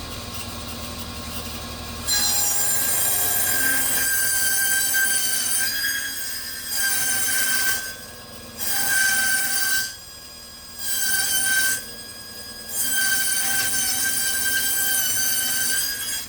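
Table saw cutting a wooden board: the blade runs at a lower level at first, then gives a loud, steady, high-pitched whine about two seconds in as it bites into the wood. The cutting whine drops away and returns several times as the board is fed through.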